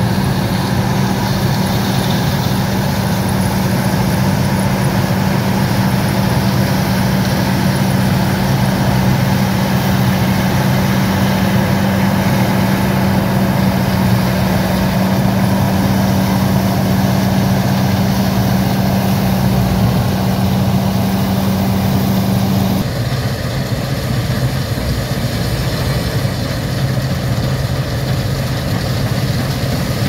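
1977 Gleaner M2 combine running steadily while harvesting soybeans: a continuous machine drone with a strong steady hum. About three-quarters of the way through the sound changes abruptly, the hum dropping out and the drone becoming a little quieter.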